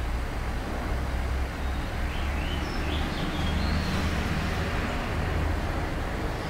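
Steady low background rumble with a few faint, short high chirps about two to four seconds in.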